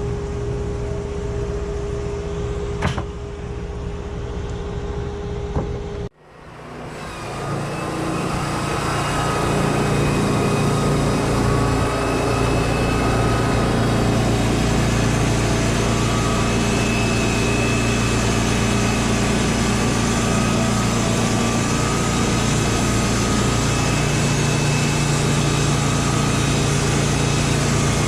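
An engine running steadily, with a single sharp click about three seconds in. About six seconds in, the sound cuts out abruptly, then fades back in over a couple of seconds to a louder, steady engine-and-machinery noise.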